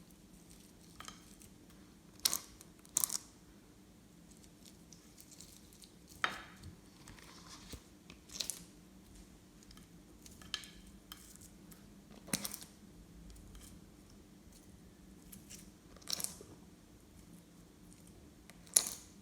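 Glossy slime being worked by hand, giving sharp, short pops and clicks of trapped air every few seconds over a faint steady hum.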